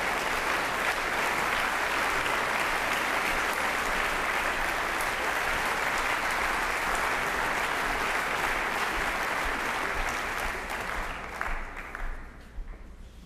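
Concert hall audience applauding, a dense, steady clapping that thins to scattered last claps and dies away in the final couple of seconds.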